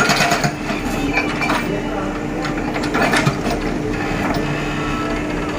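Clicking and ratcheting of a toy construction machine's plastic parts being worked, in irregular bursts over a steady hum.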